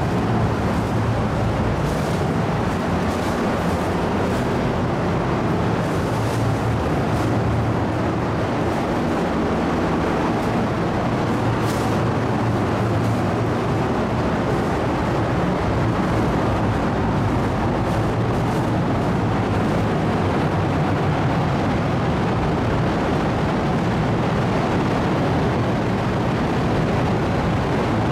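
Steady drone of the car ferry Lavender's engines and ventilation heard inside the ship, with a low hum under it, while the ferry is still under way coming in to berth. A few faint taps sound in the first half.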